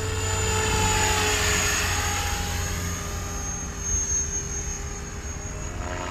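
KDS Innova 550 electric RC helicopter flying 3D aerobatics in idle-up, its 520 mm main rotor blades beating the air over a steady high-pitched motor whine. The sound is loudest over the first two seconds and eases off after about three seconds.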